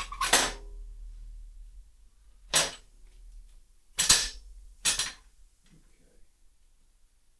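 Four sharp knocks, irregularly spaced, from work on the motorcycle frame's centre stand and brackets; the first has a short ring after it.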